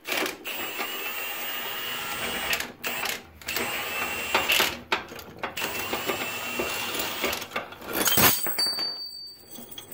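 Impact wrench running in three bursts with a motor whine, backing the nut off the long bolt of a homemade bushing press. A sharp knock about eight seconds in.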